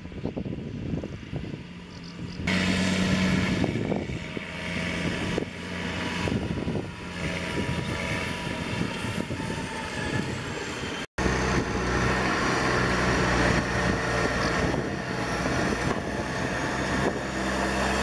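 Case IH Magnum tractor's diesel engine running as it drives past pulling a loaded trailer, with tyre noise on gravel; it gets louder about two and a half seconds in. After a brief dropout a little past halfway, the engine runs steadily close by.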